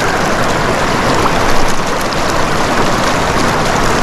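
Whitewater of the Upper Clackamas River rushing steadily over boulders, a loud, even roar of fast water.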